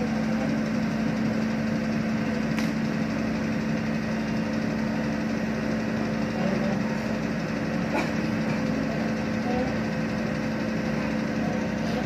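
Sumitomo asphalt paver's diesel engine running steadily as the tracked paver crawls down a trailer's loading ramp, a constant hum with a couple of faint clicks.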